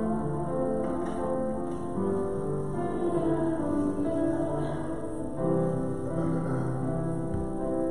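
Slow instrumental music, likely piano or keyboard, playing held chords that change every second or so.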